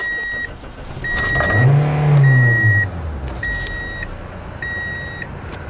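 2003 Toyota Corolla's four-cylinder engine revved once about a second in, the pitch rising then falling back toward idle. The car's warning chime beeps about once a second throughout.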